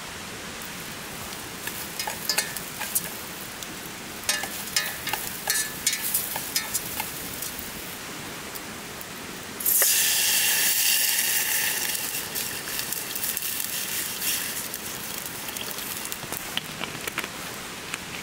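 Rice, ginger and sesame oil frying in a metal pot over a wood campfire, sizzling with sharp pops. About ten seconds in, water poured into the hot pot sets off a sudden loud hiss that eases into a steady sizzle as it starts to boil.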